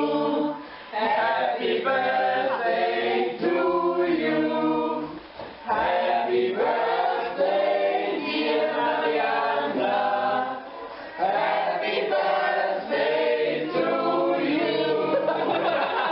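A group of voices singing a song together, unaccompanied, in held phrases with short breaks between them.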